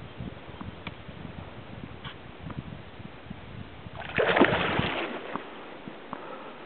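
A splash of water about four seconds in, the loudest sound, over a low rumble and a few faint clicks. The rumble stops suddenly just after the splash.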